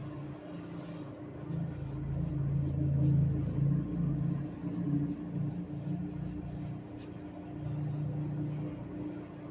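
Faint little snaps of hair being tugged section by section (hair cracking), about two a second, over a steady low hum. A low rumble swells for a few seconds after the first second and again near the end, louder than the snaps.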